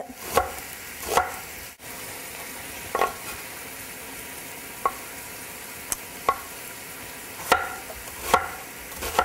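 A knife chopping an onion on a wooden cutting board, with sharp irregular knocks about once a second. Under them, a steady sizzle of scallops frying in a pan.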